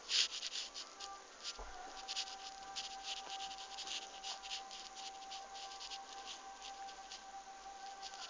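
Drawing strokes scratching on paper, short and irregular, several a second. A faint steady tone runs underneath from about two seconds in.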